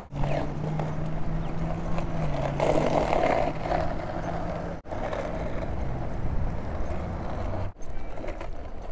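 Skateboard wheels rolling over asphalt while being towed by dogs: a steady rolling rumble with a low hum, cutting out briefly twice.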